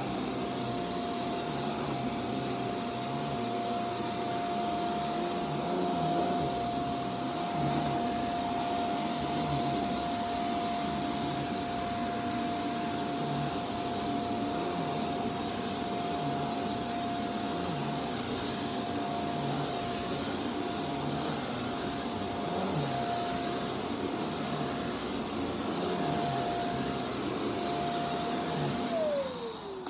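Shark Vertex Powered Lift-Away upright vacuum running on carpet: a steady motor whine over the rush of air, with the floor nozzle pushed back and forth in slow strokes. Just before the end it is switched off and the whine falls quickly in pitch as the motor winds down.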